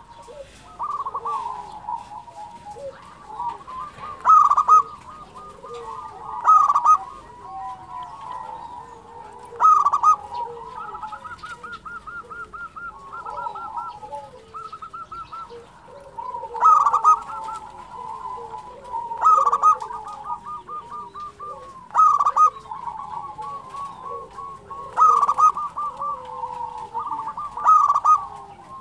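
Zebra dove (perkutut) singing its rapid, stuttering trilled coo, the phrases repeating with a loud accented note every two to three seconds. There is a longer stretch of softer trilling without the loud notes near the middle.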